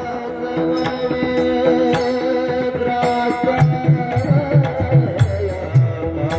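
Marathi devotional music with mridang accompaniment: a long, slightly wavering melody note held over steady sustained tones, with sharp strikes throughout and mridang bass strokes coming in about three and a half seconds in.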